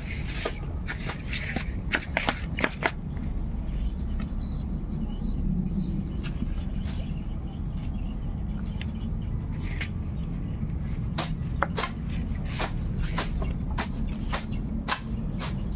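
Irregular sharp clicks and light scrapes of small objects being handled by hand, thick in the first few seconds and then scattered, over a steady low rumble.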